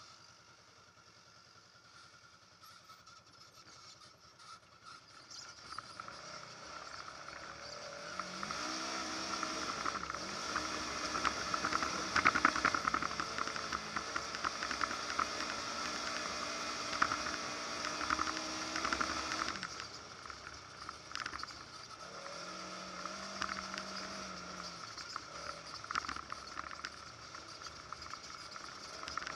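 Polaris RZR 900 side-by-side's engine pulling on a rough off-road trail, with the body and panels rattling over the ground. It is faint for the first few seconds, revs up about eight seconds in, is loudest through the middle, and eases back after about twenty seconds.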